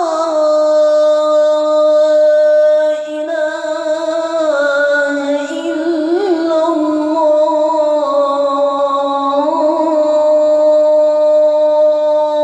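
A muezzin's voice chanting the adhan, the Islamic call to prayer, drawing out one long held note with ornamented melismatic turns and a few shifts in pitch.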